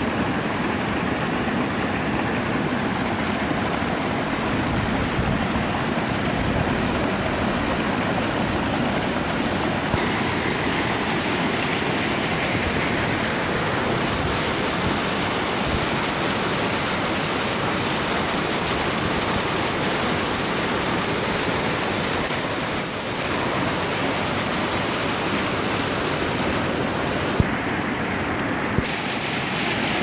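Small waterfall pouring down a rocky, grassy slope: a steady rush of falling water that turns brighter and more hissing about a third of the way in.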